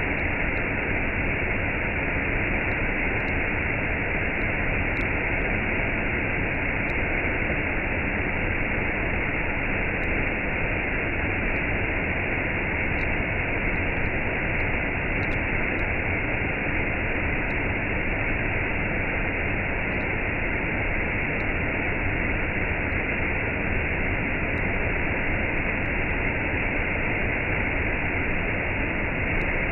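Waterfall cascading: a steady, unbroken rush of falling water.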